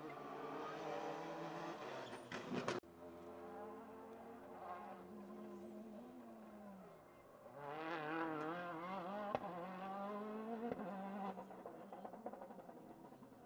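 Rally car engine at high revs on a special stage, its pitch climbing and dropping through gear changes as it passes, with a sharp crack about three seconds in. Later the engine note rises again, wavering.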